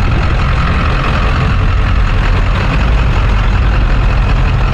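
A truck engine idling with a steady low rumble under a continuous hiss.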